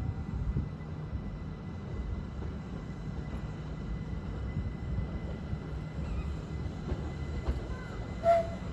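Class 387 electric multiple unit pulling away from the platform: a steady low rumble with a faint thin whine above it. Near the end a short, sharp whistle-like tone sounds once.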